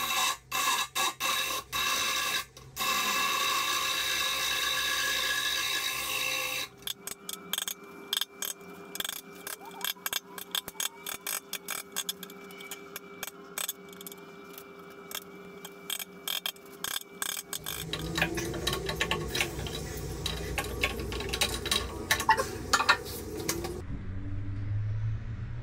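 Power drill running into a timber vanity top, starting and stopping a few times, then running steadily for several seconds. A long run of rapid clicks and rattles follows, then lower rumbling handling noise with knocks.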